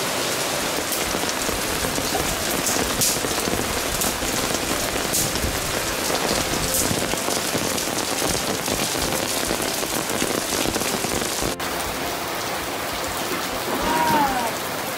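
Steady rain falling on surfaces, an even hiss with a few separate drops.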